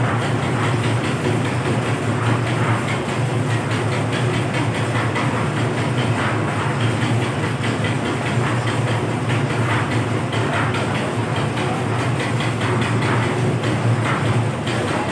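Concrete mixer running with its drum turning as it mixes mortar: a steady hum with a continuous clatter.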